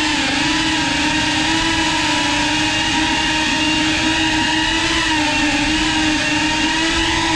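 Whoop FPV drone's motors and propellers whining steadily, the pitch wavering slightly up and down with the throttle.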